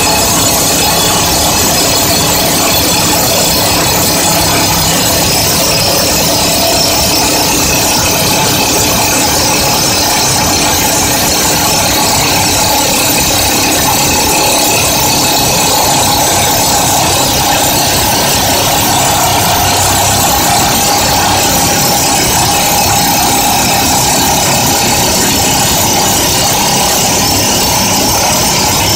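FINE Breaker EX-Drill 300 excavator-mounted hydraulic rock drill hammering rapidly and steadily as it bores down into rock.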